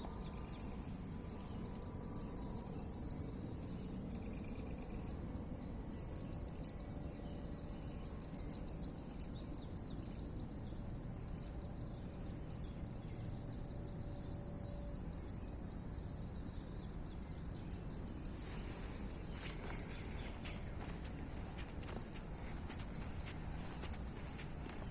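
Woodland ambience: high, rapidly pulsing trills that come in bouts of a few seconds, over a steady low background hum, with a few faint calls and some light clicks in the last few seconds.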